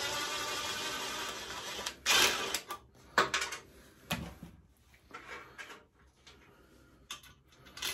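Ratchet wrench clicking rapidly for about two seconds, then several sharp metal clanks and fainter taps of hand tools.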